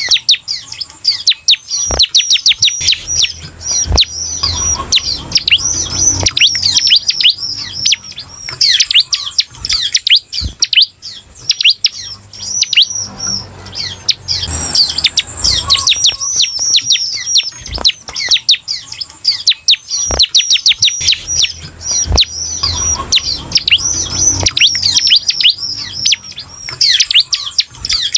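Ciblek (bar-winged prinia) singing: long runs of rapid, high, chirping notes, each a quick downward sweep, with brief pauses between runs.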